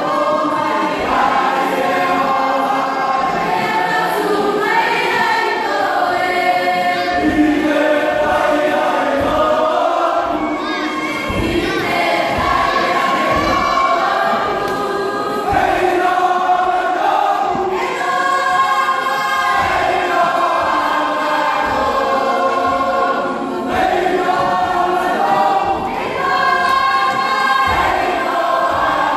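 A Cook Islands group of many voices singing together in harmony, in long sung phrases, with short low thuds under the singing.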